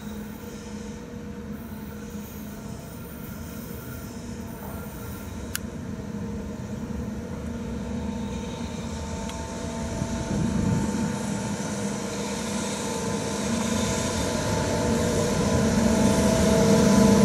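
JR Freight EH500 electric locomotive hauling container wagons, approaching and growing steadily louder. Its running noise is a steady hum, with several held tones building from about halfway through.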